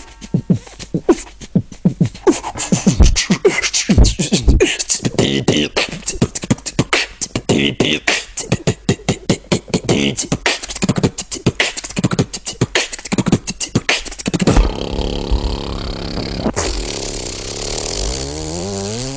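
Beatboxing: a fast rhythmic break of vocal drum hits. About fifteen seconds in it changes to a held, wavering vocal synth sound that slides up and down in pitch.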